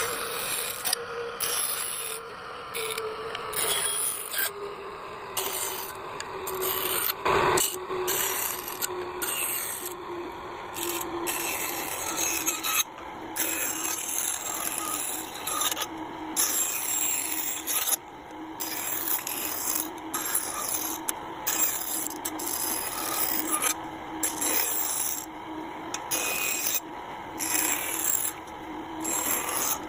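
A tool rasping against wood in repeated strokes, about one a second, with a faint steady hum underneath.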